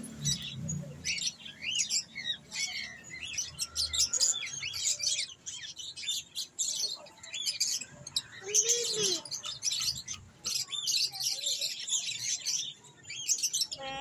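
A flock of caged lovebirds and budgerigars chirping and chattering densely, many high calls overlapping, with one lower call about halfway through.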